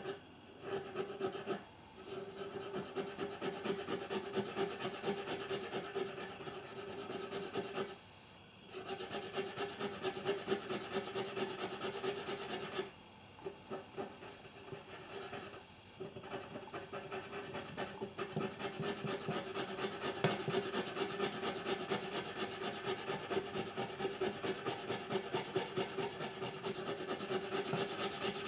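Rust being scrubbed off the metal of a Konica EFJ compact film camera: a fast, rhythmic rasping rub with a steady hum running alongside. It stops briefly about eight seconds in and for a few seconds around the middle, then carries on.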